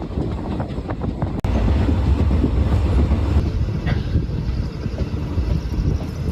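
Chennai Egmore–Salem Superfast Express running at speed, heard from on board: a steady rumble of wheels on track with scattered clicks over the rail joints. About a second and a half in it jumps abruptly to a louder, heavier rumble.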